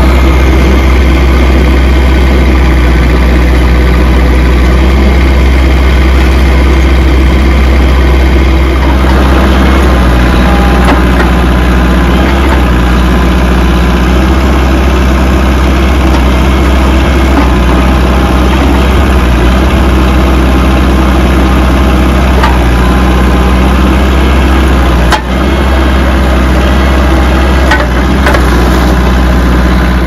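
Engine of a Ditch Witch HT52132 trencher-backhoe running steadily and loudly at close range. About nine seconds in its sound becomes less harsh and settles into a lower, steady note. A brief knock about 25 seconds in.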